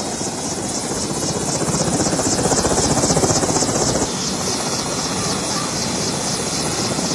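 Helicopter on the ground with its engine running and rotor turning: a rapid, even beat of the blades over a steady high whine. It grows a little louder, then drops back somewhat about four seconds in.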